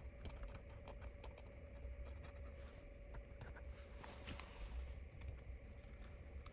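Faint, irregular light clicks and taps of hands and small tools handling the tablet's parts, over a low steady hum.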